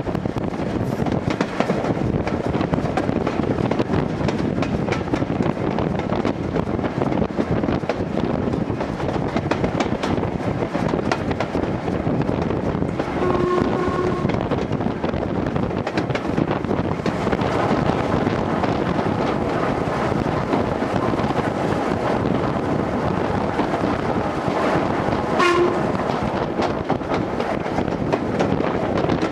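Steam locomotive running, heard from its footplate as a steady rush of wind and running noise. A whistle blast of nearly a second sounds about halfway through, and a brief second toot comes a few seconds before the end.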